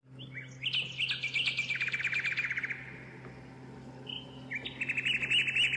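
Songbirds singing: a phrase of quick chirps ending in a fast trill, then after a short pause another run of rapid repeated notes. A faint low steady hum underneath.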